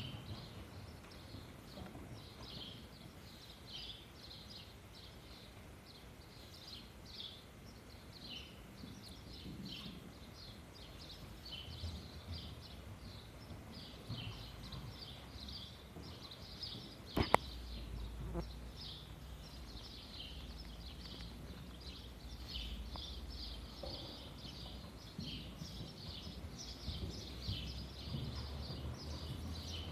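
Small birds chirping over and over in short, high, irregular calls, over a faint low background rumble. A single sharp click about halfway through.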